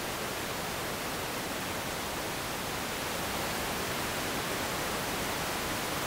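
Whitewater rapids rushing through a narrow rock gorge: a steady, even rush of water with no let-up.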